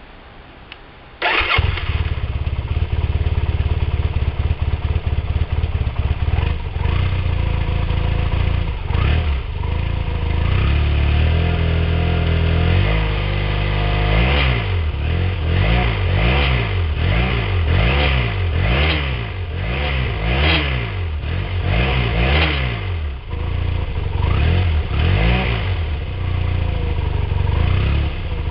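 Yamaha TDM850's parallel-twin engine through its original stock exhaust, starting abruptly about a second in and idling. Through the second half it is revved over and over, about one throttle blip a second, the pitch climbing and falling with each.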